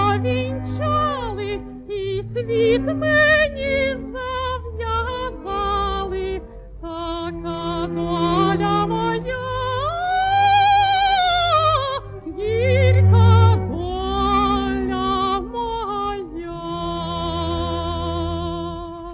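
A woman singing a slow song with wide vibrato on long held notes over a sustained low accompaniment. She climbs to a long high note about ten seconds in.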